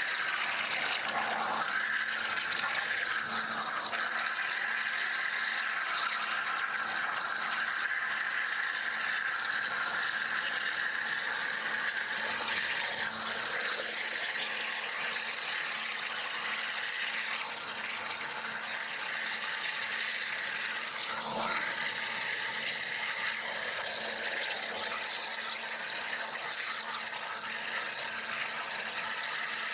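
CNC water jet cutting machine's high-pressure jet cutting through metal sheet: a steady hiss, with a faint low hum underneath and one brief click about two-thirds of the way through.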